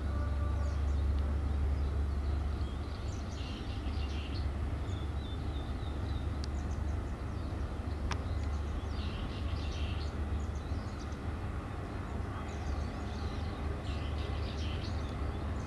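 Birds singing outdoors in short bursts of high chirps every few seconds over a steady low rumble, with one sharp click about eight seconds in.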